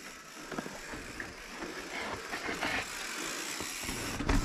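Mountain bike rolling down a rock slab: tyres on rock and the bike rattling, with scattered clicks and knocks that get louder near the end.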